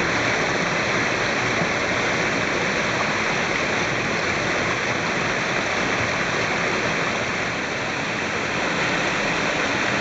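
Mountain stream splashing down a series of small falls over boulders, a steady rush of water.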